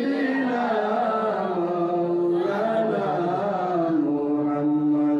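A man chanting in a slow, melodic sung style into a microphone, drawing out his notes and holding one long steady note through the second half.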